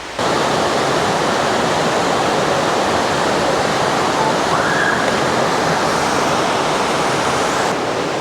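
Waterfall rushing steadily: a loud, even noise of falling, churning river water that starts abruptly and holds constant.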